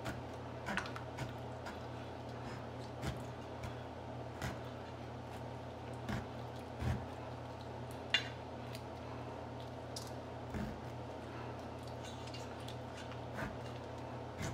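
Kitchen knife repeatedly stabbed into a raw beef roast lying in marinade in a stainless steel bowl, piercing the meat so the marinade soaks in: soft, irregular clicks a second or so apart over a steady low hum.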